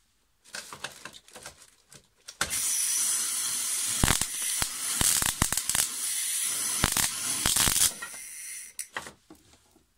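High-voltage arcing from a homemade 150–200 kV voltage multiplier fed by a flyback transformer: a few scattered snaps at first, then about five seconds of continuous crackling hiss with sharper cracks. The arcing then thins to a few last snaps and stops.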